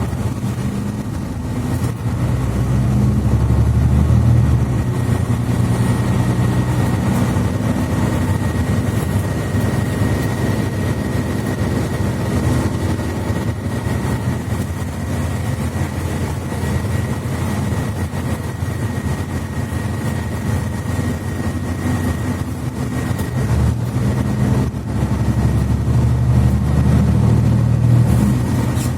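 Mercedes-Benz Citaro C2 articulated bus heard from inside while underway: the engine and Voith automatic gearbox running steadily, swelling under load a couple of seconds in and again near the end, with a thin steady high whine throughout.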